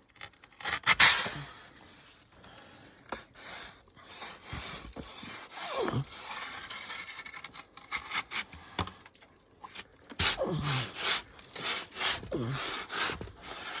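Canoe paddle repeatedly striking and scraping ice in irregular knocks, busiest near the end, a few of them followed by a short falling tone.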